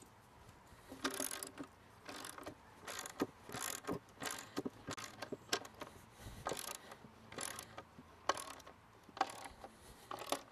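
Socket ratchet wrench clicking in repeated short strokes, starting about a second in, as it drives a lag bolt into pressure-treated lumber.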